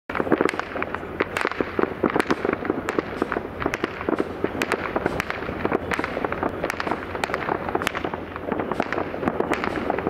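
Fireworks display: a dense, unbroken run of sharp bangs and crackles, many reports a second.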